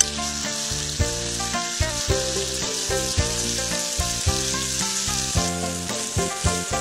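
Clams sizzling in their own juices on a fire-heated stone slab as the shells steam open: a steady hiss with small crackles.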